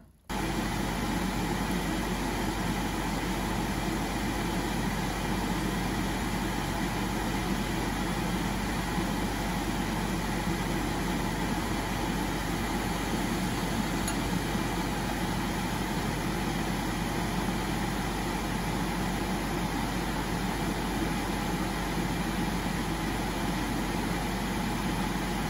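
Solder fume extractor fan running: a steady hum with an even rush of air.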